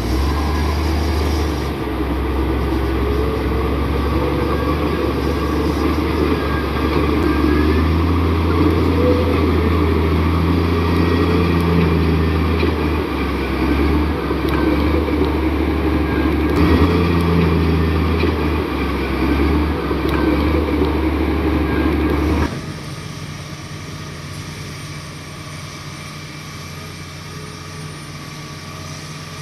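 Komatsu D58 bulldozer's diesel engine running steadily with a deep drone; about three quarters of the way through it drops suddenly to a quieter, steady hum.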